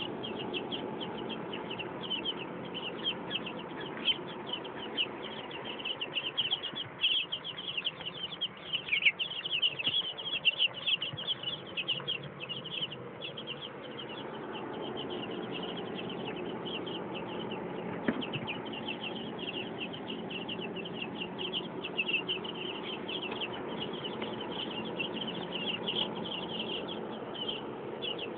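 A brood of two-week-old light Brahma chicks peeping without a break, many short high cheeps overlapping. The peeping gets louder and busier for a few seconds in the middle.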